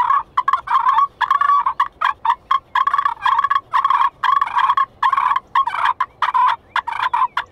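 Maple-bodied friction turkey call with aluminum and acrylic striking surfaces, worked with strikers in a fast, unbroken run of short, scratchy notes imitating fighting turkeys.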